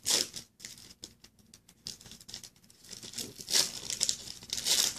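Foil trading-card pack wrapper being torn open and crinkled by hand, in irregular bursts of rustling and ripping. The loudest tears come just after the start and again in the last second and a half.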